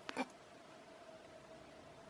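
Near silence: room tone with a faint steady hum, after a brief short sound at the very start.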